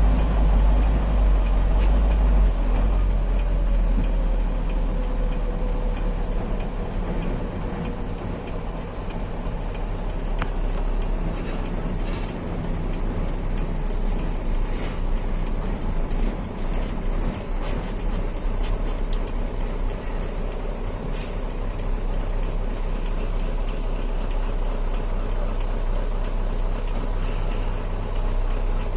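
Heavy truck driving on the road: a steady low engine and road rumble.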